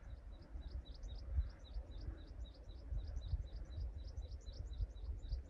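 A small bird chirping over and over, about four short rising chirps a second, over a low rumble of wind on the microphone.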